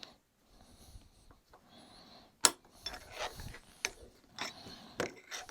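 Metal clicks and short scrapes of a wrench working a bolt on a metal plate, in irregular strokes, with one sharp clank about two and a half seconds in.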